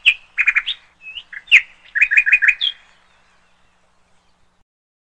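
Bird chirping: short high chirps, some in quick runs of three or four, stopping about three seconds in.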